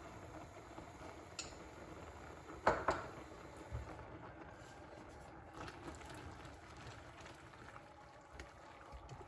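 Quiet kitchen sounds: a faint steady hiss with a double knock of a utensil or dish about three seconds in and a lighter knock shortly after.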